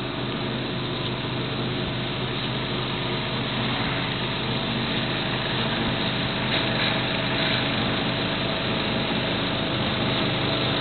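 Sealcoating spray rig's engine-driven pump running steadily, a constant hum, with the hiss of sealer spraying from the hose wand.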